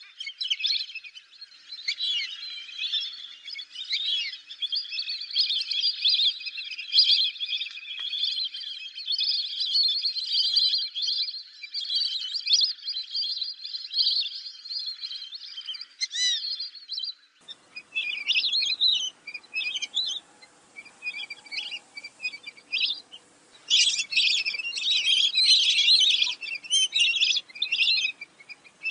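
A flock of fulvous whistling ducks calling: many high, clear whistles overlapping in a dense chorus. About 17 seconds in, a faint background noise comes in and the calls arrive in separate bursts. They thicken into a dense chorus again near the end.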